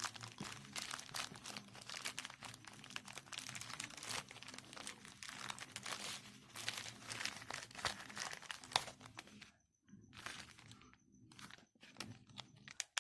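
Plastic parcel packaging being torn open and crinkled by hand, with dense crackling for about nine seconds, then only a few scattered crackles.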